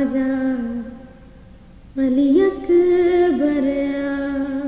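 A woman singing a noha, an Urdu lament, with no instruments heard. She holds one phrase that falls in pitch at its end and breaks off. After a pause of about a second she sings a longer phrase that rises, wavers and settles.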